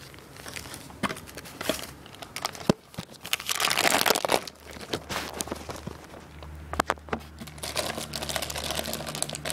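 Plastic packaging wrap crinkling and rustling as hands handle it. A few sharp clicks are heard, and the loudest burst of crinkling comes about four seconds in.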